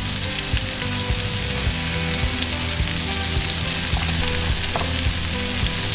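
Sea scallops searing in plenty of hot oil in a stainless steel pan, a steady sizzle.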